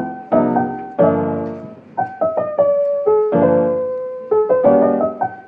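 Background piano music: a run of struck chords and single notes, each one fading before the next.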